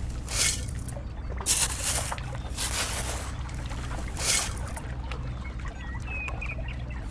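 A small motor running with a steady low hum, under four or five short hissing rushes like pouring or spraying.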